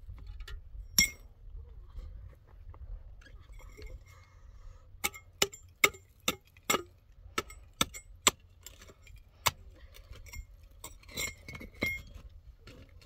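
Concrete blocks and chunks of rubble knocking and clinking against each other as they are handled. There is one sharp knock about a second in, then a run of about two a second from about five seconds in, and a few more near the end.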